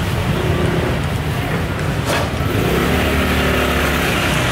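Motor scooter engine running steadily close by through the second half, over continuous street traffic noise.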